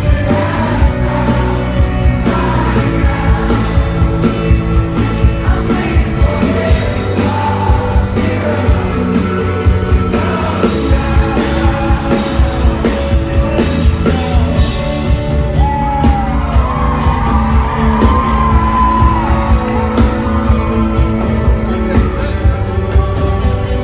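Live rock band playing with a sung lead vocal over a steady drum beat.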